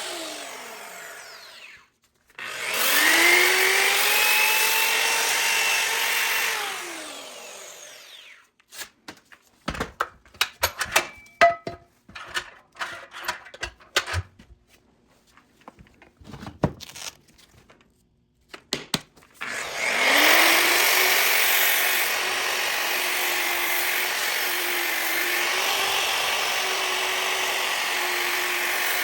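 Bauer variable-speed grinder with a sanding pad, sanding a cast iron skillet down to bare metal. It winds down at the start, starts again about two seconds in, runs for a few seconds and winds down. Then comes a stretch of scattered clicks and knocks, and about twenty seconds in it spins up again and runs steadily against the iron.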